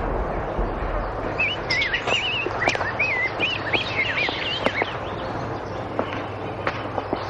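A songbird singing a run of quick warbling, wavering chirps for a few seconds, starting about a second and a half in. Behind it is a steady outdoor hiss and a few scattered light ticks.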